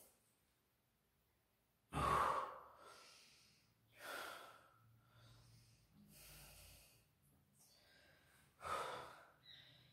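A man breathing out hard every couple of seconds as he catches his breath after an abdominal exercise. The first breath, about two seconds in, is the loudest.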